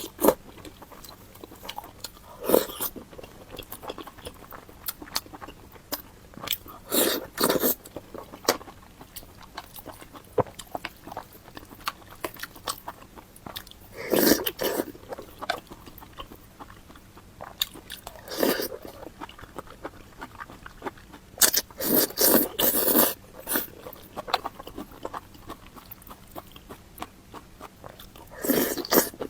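Close-miked eating: a person biting and chewing food. Separate crunchy, smacking bursts come every few seconds, with quieter chewing between them.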